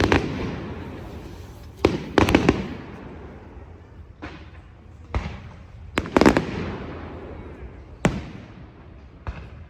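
Aerial fireworks shells bursting: sharp bangs every second or so, some in quick clusters of two or three, each followed by a long rolling echo.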